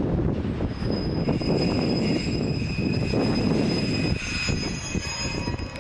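Wind buffeting the microphone over the background noise of a railway station. From about a second in until shortly before the end, a thin, steady, high-pitched squeal sits above it.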